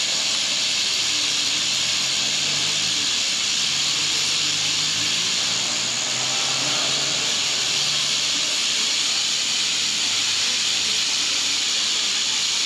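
A large flock of lorikeets screeching and chattering all at once, making a dense, steady, high-pitched din in which no single call stands out.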